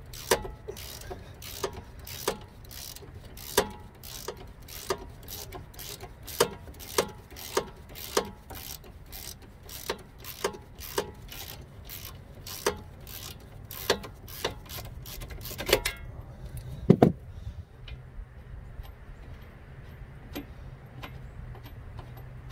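Hand ratchet clicking with each back-stroke, about two clicks a second, as it spins the nut off the Jeep Renegade's upper sway bar link. The clicking stops about 16 seconds in, followed by a single louder knock.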